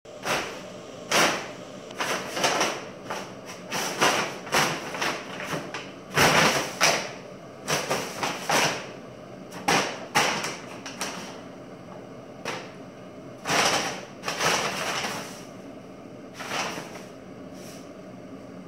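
Brown paper bag rustling and crinkling in irregular bursts as a cat paws at it and pushes her head inside, looking for a piece of paper in the bag. The rustling stops near the end.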